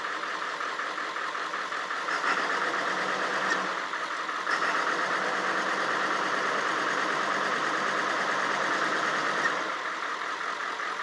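Ford 7.3 Power Stroke V8 turbo-diesel running just after a cold start, a rough idle that grows louder for several seconds in the middle and then settles back. The owner feels not all the injectors are firing and puts it, along with the white smoke, down to old summer diesel in the cold.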